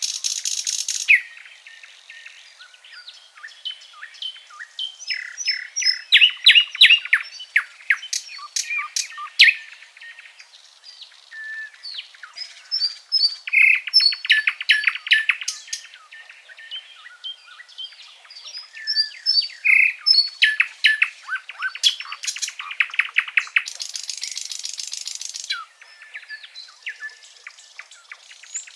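Several songbirds singing and chirping, a tangle of short whistled notes and rapid trills. There is a brief steady buzzing trill at the very start and another about 24 seconds in.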